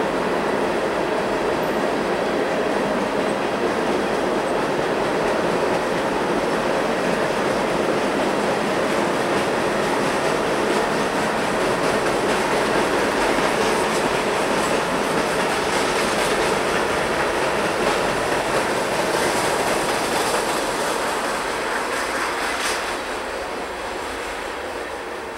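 Loaded tank cars of a Union Pacific freight train rolling across a steel girder bridge: a steady, loud rumble and clatter of wheels on the rails, easing off a little near the end.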